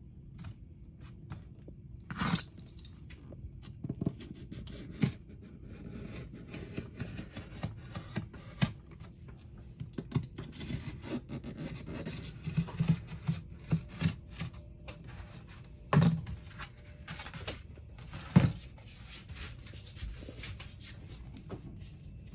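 Peel-and-stick vinyl backsplash tiles being handled and fitted: continual scratchy rubbing, scraping and peeling, broken by many sharp knocks and taps. The loudest knocks come about 2, 16 and 18 seconds in.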